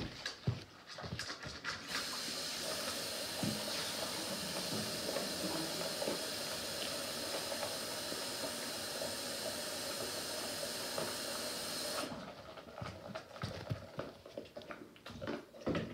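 A steady hiss like water running from a tap starts about two seconds in and cuts off abruptly about ten seconds later. Before and after it, a dog crunches food from its bowl in short clicks.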